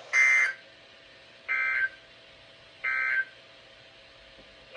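Three short bursts of Emergency Alert System SAME digital data tones, a little over a second apart, over a faint radio hiss. They are the end-of-message signal that closes a weather-radio warning broadcast.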